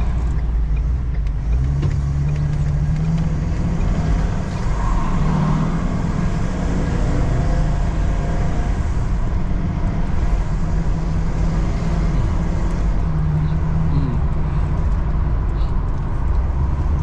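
Steady low engine and road rumble of a moving car.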